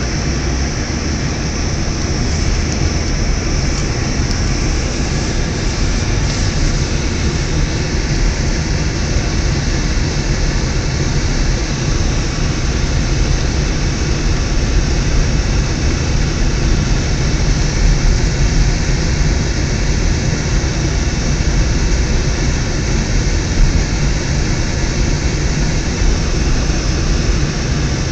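Steady road and engine noise inside a moving car's cabin on a snow-covered road: a constant low rumble with hiss above it.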